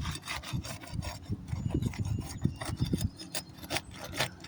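Asphalt roof shingles being pried up, their adhesive seal strips breaking loose: a quick, irregular run of scraping and crackling strokes.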